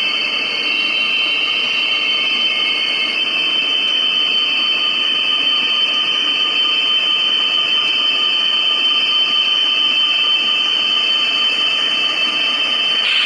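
HO-scale model diesel locomotives with MRC sound decoders, playing a running diesel engine through their small onboard speakers as they roll along the track. It is a steady, tinny high whine over a running rumble.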